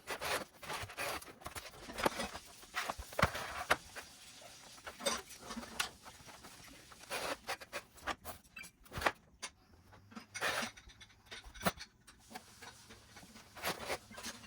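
Irregular light clicks, taps and knocks of hands handling the Xbox console's plastic parts and screws during disassembly, some sharper than others.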